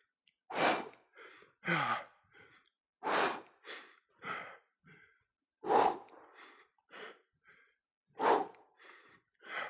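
A man breathing hard during an exercise set: short, forceful exhalations, some with a bit of voice in them, about five loud ones spaced one to two and a half seconds apart, with fainter breaths between.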